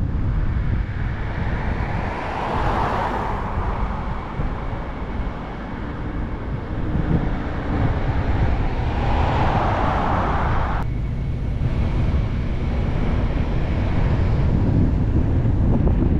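Wind rumbling on the microphone and road noise from a moving car. Two passing vehicles swell up and fade away, about three seconds in and again around ten seconds in; the second cuts off abruptly.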